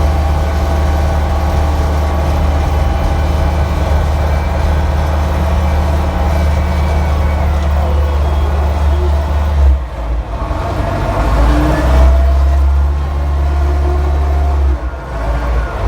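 Caterpillar 920 wheel loader's diesel engine running steadily at a loud, even drone. About ten seconds in the drone breaks and the revs dip and pick up again, with a faint whine rising and falling, and there is another brief dip near the end.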